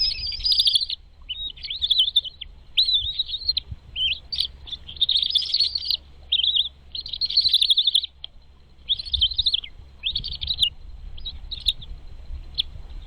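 Nestlings chirping in a quick string of high calls, each under a second long with short gaps between them, as a parent bird brings food to the nest. The calls thin out near the end.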